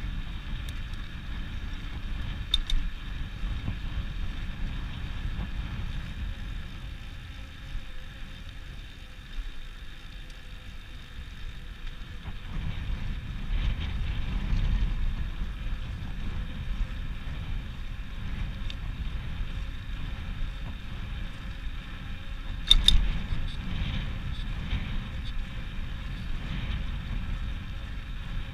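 Wind rushing and buffeting over the microphone of a camera on a moving bicycle, with two sharp knocks: a small one early and a louder one about four-fifths of the way through.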